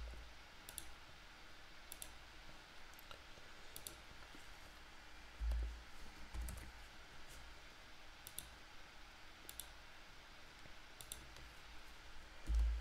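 Scattered single clicks from a computer mouse and keyboard keys being pressed, a second or more apart, with a couple of soft low thumps about halfway through.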